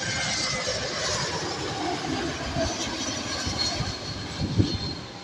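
Jet airliner on final approach passing by, with a steady engine roar and a whine that falls in pitch about two seconds in as it goes past. Low thumps near the end.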